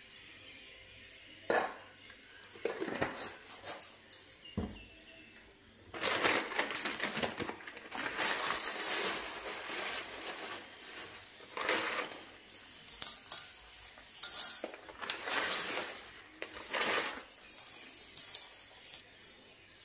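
A spoon clinking and scraping against a stainless steel bowl, then a plastic salt packet crinkling and salt being poured onto the pickle in the bowl.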